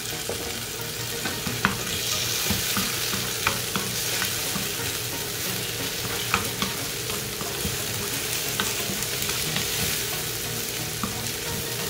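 Sliced tomato and chopped onion sizzling in hot oil in a non-stick pan while a spatula stirs them, with scattered taps and scrapes of the spatula against the pan.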